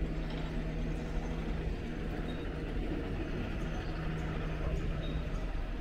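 Steady ambience of an open-air railway platform: a low rumble with a faint steady hum, and a few faint high ticks.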